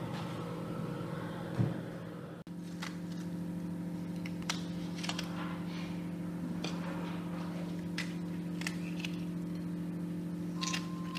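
A kitchen appliance motor humming steadily, with scattered light clicks and knocks and a short electronic beep near the end.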